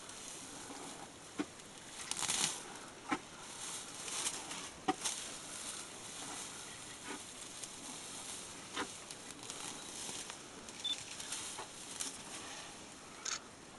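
An African elephant feeding in grass and brush: rustling vegetation with about half a dozen irregular sharp snaps of stems and twigs being pulled and torn.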